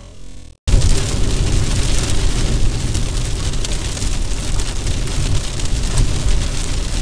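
Heavy rain on a moving car, heard from inside the cabin: a loud, steady hiss of rain with many small drop impacts over a low tyre and road rumble. It cuts in abruptly about half a second in, replacing faint music.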